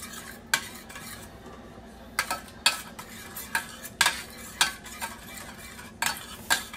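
Metal spoon stirring barbecue sauce in a stainless steel frying pan, clinking and scraping against the pan in sharp, irregular clicks.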